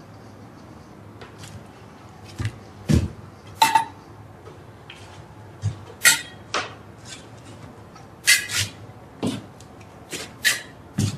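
Small objects being handled on a cluttered worktable: a dozen or so irregular taps, clinks and knocks of tools and metal or glass pieces, over a low steady room hum.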